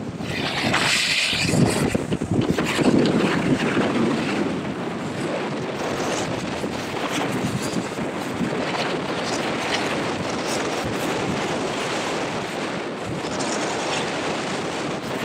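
Wind buffeting the microphone, mixed with the steady scraping hiss of snowboards sliding over rough snow, louder gusts in the first few seconds.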